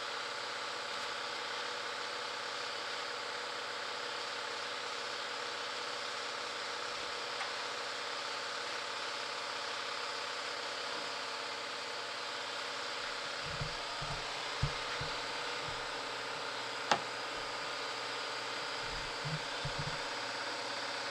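Steady hum and hiss of shop background noise, with a few soft knocks in the second half and one sharp click from a pry bar and tools working the upper ball joint stud and nut on a pickup's front suspension.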